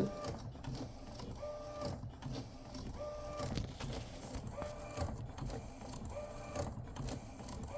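Epson P906 inkjet printer's print head carriage running, with a short grinding squeal repeated every second or so as the head comes to the base and changes direction. The grinding is abnormal for this model, and the owner suspects a mechanical fault at the base or a blocked wheel rather than the head itself.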